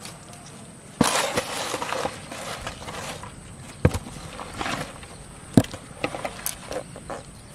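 Live snakeheads and catfish flapping and slapping against a plastic tub while a hand handles them. A burst of thrashing starts about a second in, followed by scattered sharp knocks and slaps.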